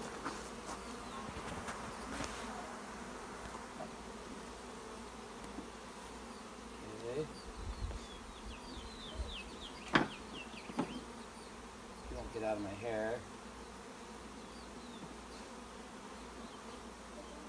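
Honeybees from a freshly installed package buzzing around an open top bar hive in a steady hum. A single sharp knock about ten seconds in stands out above the buzz, with a few short chirps around it.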